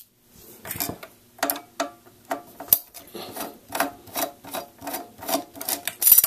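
Phillips screwdriver turning small screws out of a projector's metal lamp-housing cover: a rapid run of short scraping turns, about three a second, with a louder burst near the end.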